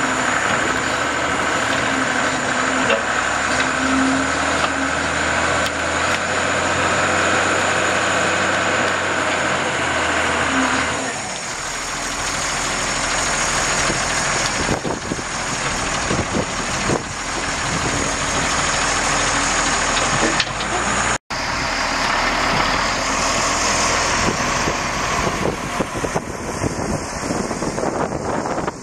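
Case 1085B Cruz Air wheel excavator's six-cylinder turbo diesel engine running steadily while the boom and bucket are worked. The engine note shifts about a third of the way in, and the sound cuts out for an instant about two-thirds of the way through.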